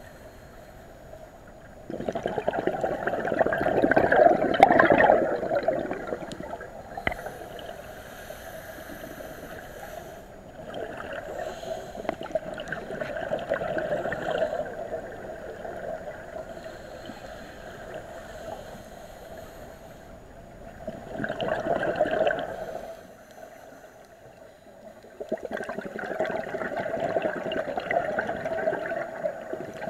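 Scuba diver's regulator breathing heard underwater: exhaled air bubbling out in four gurgling bursts of a few seconds each, with quieter spells between breaths.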